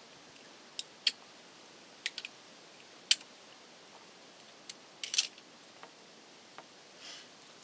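Sharp, scattered clicks and snips of wire strippers working the insulation off electrical wire, with a quick cluster about five seconds in.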